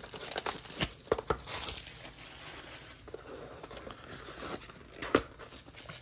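A cardboard trading-card box being handled and opened by hand: rustling and scraping of cardboard with some crinkling of plastic wrap. A few light taps come near the start, and one sharper tap about five seconds in.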